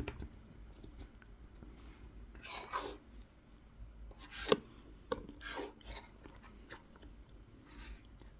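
Tip of a Mora 106 carving knife scoring fine lines into a wild cherry wooden spoon: a few short, scratchy strokes, with a sharp tick about halfway through.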